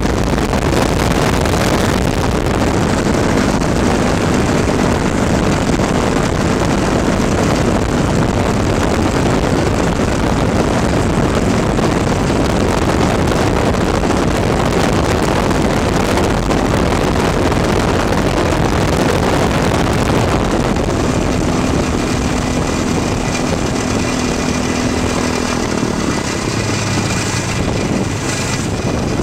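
Mariner amphibious light aircraft landing on water: its propeller engine runs under a loud, steady rush of water against the hull and wind. Near the end the engine tone drops to a lower pitch as power comes off.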